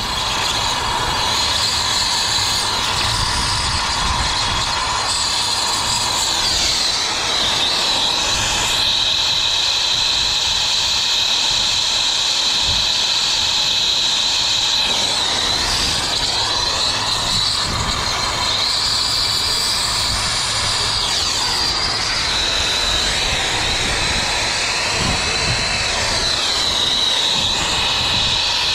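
Brazing torch flame burning steadily with a loud hiss while copper refrigerant line joints are brazed on a replacement condenser coil. The tone of the hiss sweeps up and down a few times.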